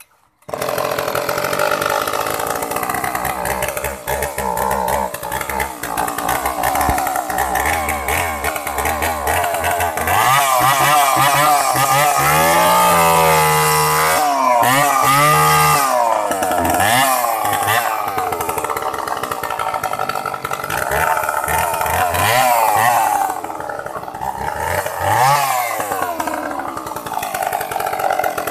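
Echo 452VL two-stroke chainsaw running, its engine revved up and down several times in quick swings in the middle.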